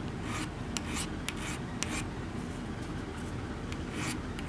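Hand file rasping in short quick strokes across the mashed-over end of a metal pin through an old awl's wooden handle, filing the mushroomed head back so the pin can be driven out. The strokes come close together in the first two seconds, lighter after, with another firm stroke near the end.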